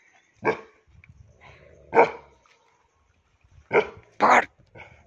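Gaddi dog barking about four times, single barks spaced a second or more apart and the last two close together.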